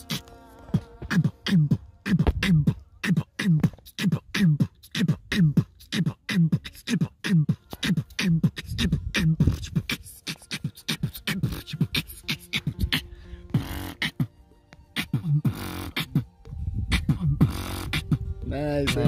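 Beatboxing used as background music: a steady vocal beat of deep falling kick sounds about twice a second, with sharp snare and hi-hat clicks made by mouth between them.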